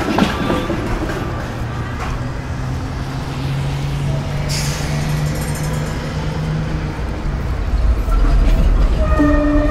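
City street traffic with a bus engine running steadily nearby and a short hiss of air about halfway through, like an air brake. A low rumble swells near the end as music comes in.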